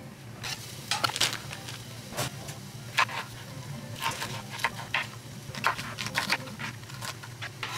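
Chef's knife chopping bell pepper on a wooden cutting board: irregular knocks of the blade meeting the board, about one or two a second, over a steady low hum.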